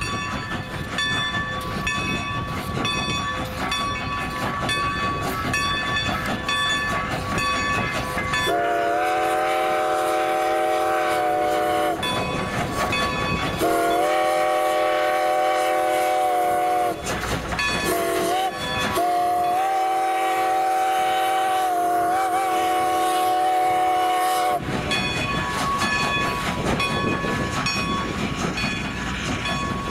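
Strasburg No. 90's steam whistle, a chord of several notes, blows the grade-crossing signal: two long blasts, a short one that bends in pitch, then a long one. Before and after it a bell rings in a quick, steady rhythm over the running train.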